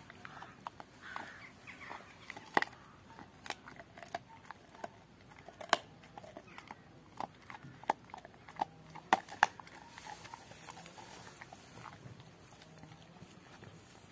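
Rottweiler gnawing a raw pork bone, its teeth cracking and crunching on the bone in irregular sharp snaps, with a few loud cracks in the middle that ease off toward the end.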